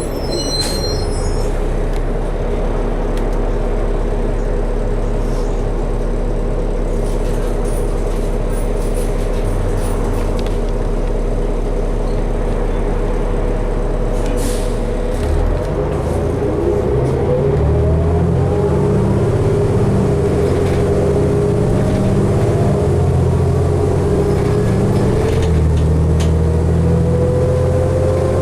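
Articulated diesel transit bus (2012 New Flyer D60LFR) heard from inside, its engine running steadily. A short electronic tone sounds in the first second. About halfway the low engine note changes and a whine starts to rise slowly in pitch as the bus pulls away and gathers speed.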